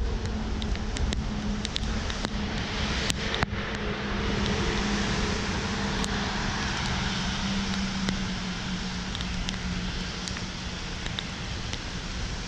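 Traffic on a wet road in the rain: a steady engine hum over a constant hiss of tyres, rain and wind, the hum fading near the end. Scattered light ticks, typical of raindrops striking the camera.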